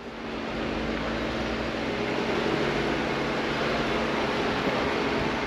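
Off-road Jeep's engine running steadily under load as it climbs up over boulders, a little louder after the first half second.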